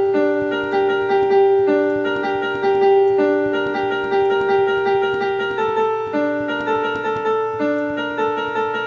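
Electronic keyboard music: a melody of held notes over sustained chords that change about once a second.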